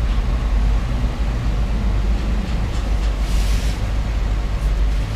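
Jeep Wrangler JK on the move, its engine and tyres making a steady low rumble, with a brief hiss about three and a half seconds in.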